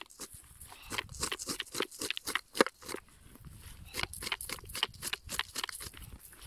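Plastic cranberry scoop raked quickly through cranberry plants and moss, a fast run of rustling, crackling strokes that eases off briefly about halfway through.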